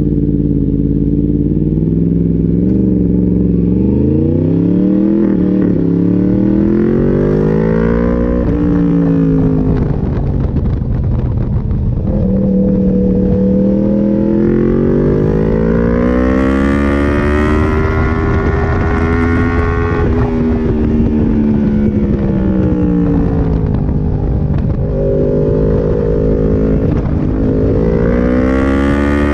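Sport motorcycle engine heard from on board while riding. Its pitch climbs under acceleration and drops as the throttle is rolled off, several times over.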